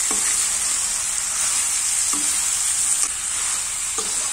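Meat sizzling steadily in hot oil and spices in a steel kadai, the hiss of fresh meat hitting the fat. A spatula scrapes and turns it three times: at the start, about two seconds in, and near the end.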